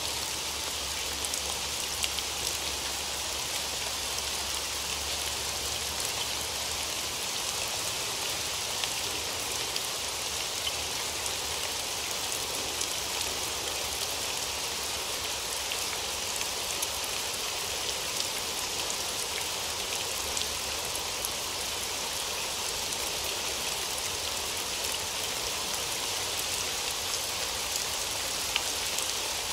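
Steady rain falling on a hard surface: a continuous even hiss with scattered sharper drop ticks.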